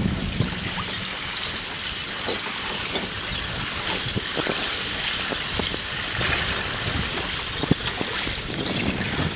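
Broken thin river ice, many small shards clicking and crackling as they jostle in a boat's wake, over a steady hiss of water. A low boat-motor hum fades out about a second in.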